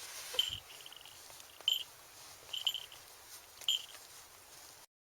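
Falcon giving short, high chirping calls, one about every second, with a soft thud about half a second in; the sound cuts off abruptly near the end.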